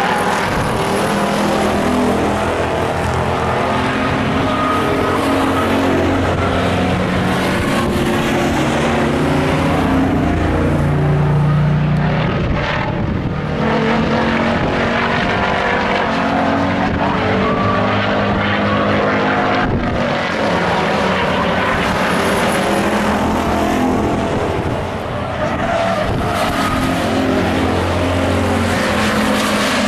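Engines of several stock-class pickup trucks racing on an oval, revving up and down in pitch as they run through the turns and down the straights.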